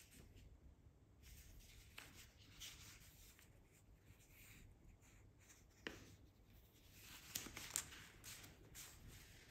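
Quiet rustling of paper leaflets and booklets being shuffled and leafed through by hand, with a sharp flick about six seconds in and louder rustles shortly after.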